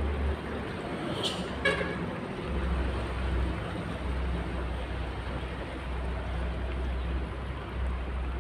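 Water pouring steadily from a jerry can into a car's radiator filler, a continuous splashing hiss over a low rumble. About a second and a half in there is a brief horn-like toot.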